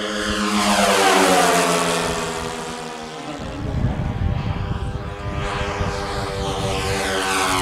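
Twin-engine radio-controlled scale model of a Nakajima J1N Gekko flying past, its two propeller engines droning. The pitch falls as it passes about a second in, then the sound fades and grows louder again near the end as it comes round.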